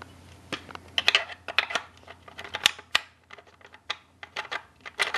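Allen wrench turning the rear stock screw of an L96 AWP airsoft sniper rifle: a run of irregular sharp clicks and ticks as the screw is backed out.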